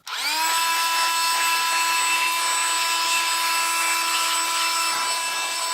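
A small electric motor spins up within the first half second, then runs steadily at high speed with a high, even whine.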